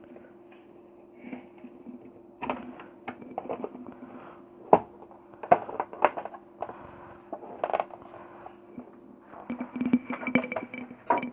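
Room heater being reassembled by hand: scattered clicks and knocks of its casing and parts being fitted together, over a steady low hum.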